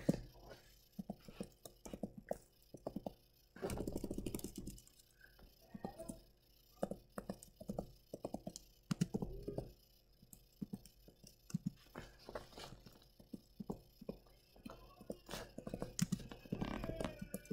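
Faint, irregular tapping of computer keyboard keys as text is typed.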